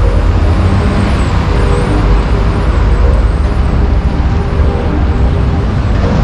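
Steady, loud road traffic noise from passing vehicles, strongest in the low end.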